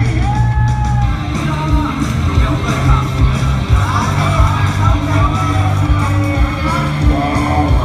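Loud rock music with vocals, played over a hall's sound system.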